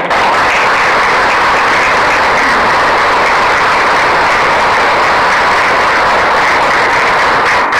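An audience applauding, loud and steady.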